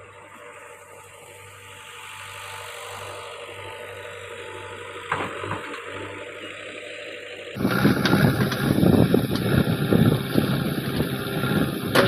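JCB backhoe loader's diesel engine running further off, then suddenly much louder and close at about seven and a half seconds in, with repeated knocks and rattles as the backhoe bucket digs into the soil.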